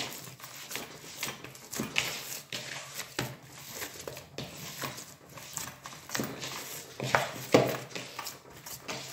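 Hands kneading sticky date paste in a plastic mixing bowl: irregular rubbing and rustling with small knocks of the bowl, loudest about seven seconds in.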